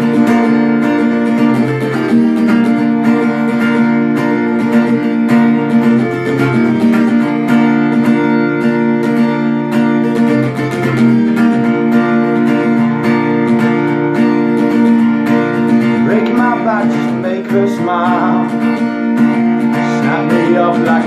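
Acoustic guitar strummed in a steady rhythm, playing chords through an instrumental break of a song.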